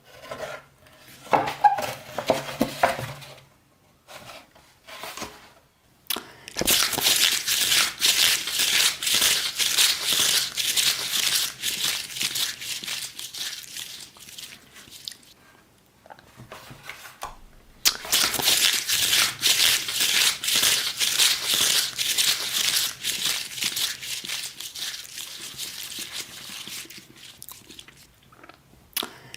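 Close-miked crinkling and crackling, starting as a few short crunches and then running in two long dense stretches with a brief pause between them.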